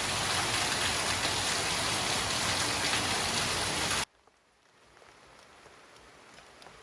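Heavy rain falling steadily, stopping abruptly about four seconds in. After that, only a faint patter with scattered single drips.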